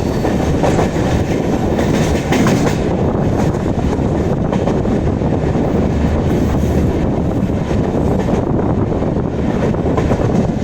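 Passenger coach of an express train running at speed: a steady rumble of wheels on rail with a clatter over the joints, a few sharp clicks in the first three seconds, mixed with the drone of the end-on-generation (EOG) power car's diesel generators coupled just ahead.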